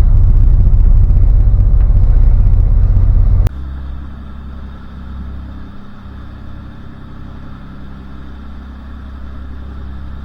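A powerboat's engine running under way at slow trolling speed: a loud, steady, low rumble that drops suddenly to a quieter, steady hum about three and a half seconds in.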